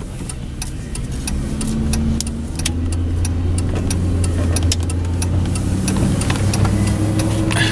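Ford pickup truck's engine heard from inside the cab as the truck pulls away, its low hum growing stronger about two seconds in and holding steady as it gets under way. A sharp click at the very start and irregular light clicks throughout.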